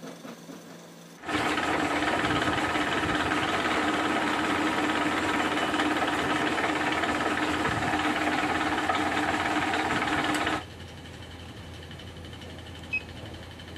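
Milling machine spindle running while its tool drills into a black POM (acetal) plastic disc: a loud, steady machine sound with a steady hum in it, starting suddenly about a second in and stopping suddenly about ten seconds in. After it comes a quieter steady hum and a single click near the end, as a key is pressed on the digital readout keypad.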